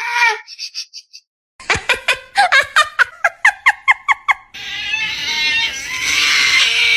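Animal cries: a quick run of about a dozen short, rising squeaky calls, then a longer harsh, raspy cry that falls in pitch at its end.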